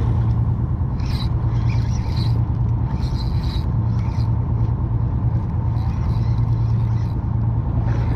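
Steady low drone of a boat's engine running, with irregular rasping bursts from a spinning reel being cranked to bring in a hooked fish.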